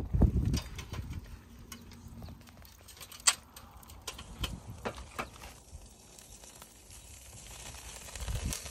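Fire crackling in a portable fire pit under a stainless grill grate, with irregular sharp pops and clicks, the loudest about three seconds in. A short low rumble comes at the very start and again near the end.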